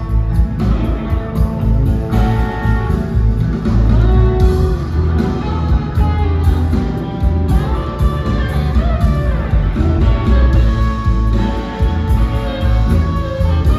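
Live rock band playing a blues, led by electric guitars with bending notes over a heavy low end, heard from the audience in a theater hall.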